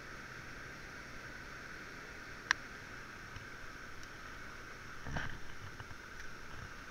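Steady rush of flowing river water, with one sharp click about two and a half seconds in and a brief rustle about five seconds in.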